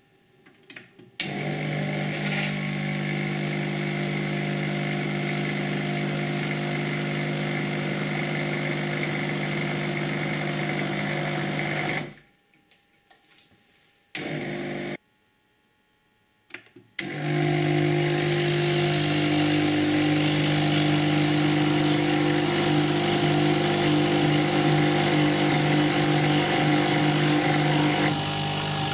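Lelit Elizabeth and Sage Dual Boiler espresso machines dispensing hot water into glasses: a steady pump hum with a hiss of water and steam. It starts about a second in, cuts out for a few seconds with one short burst in the gap, then starts again.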